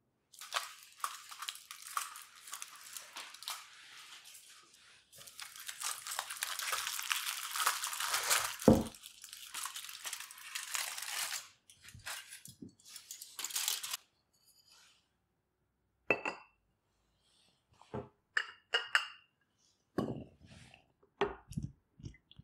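Aluminium foil crinkling for several seconds as it is peeled off a ceramic mug, with one thump partway through. Then a string of short ceramic clinks and knocks of a saucer against the mug as it is turned over onto it.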